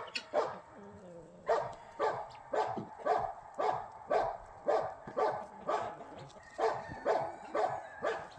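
An animal giving a run of short, sharp calls, about two a second, with a couple of brief pauses.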